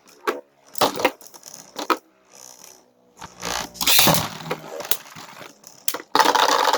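Spinning Beyblade tops battling in a stadium: sharp plastic clacks as they strike each other, then a dense, rattling clatter near the end.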